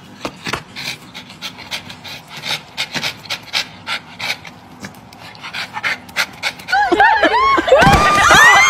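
Dog panting in quick, rhythmic breaths. Near the end, loud, rapid high-pitched cries, each rising and falling, cut in over it.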